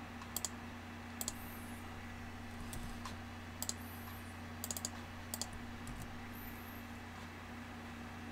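Scattered computer keyboard clicks, a few keystrokes heard as quick pairs of clicks with pauses between, over a steady low electrical hum.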